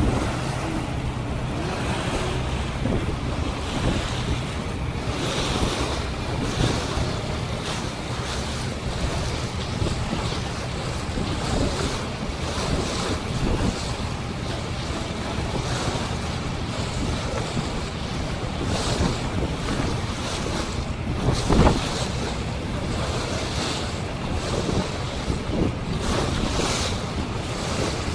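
Wind buffeting the microphone and water rushing and splashing past the hull of a moving boat, over a steady low engine hum, with one harder buffet about three quarters of the way through.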